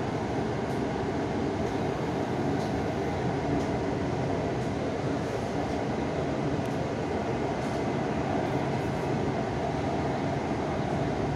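Metro train running steadily, its running noise heard from inside the carriage.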